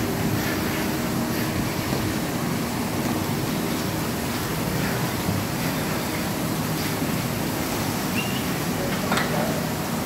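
Steady mechanical noise of a rotary milking parlour running, from the turning carousel and the milking machinery, with a single light knock about nine seconds in.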